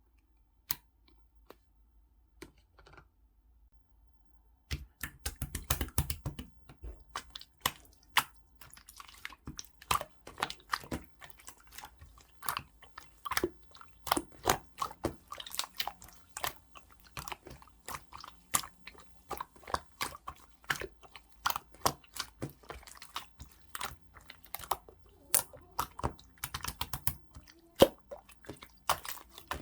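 Opaque slime being pressed, squeezed and stretched by hand, making crisp sticky clicks and pops. A few scattered clicks come first, then from about five seconds in a dense, continuous run of clicking.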